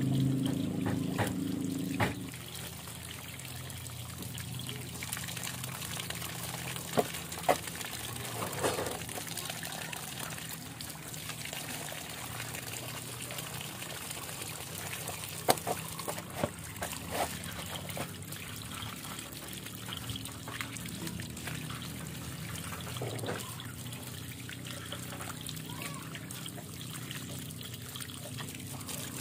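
Water from an outdoor plastic tap trickling and splashing over feet and rubber flip-flops as they are rinsed, with a few light knocks. A louder low droning hum fades out about two seconds in.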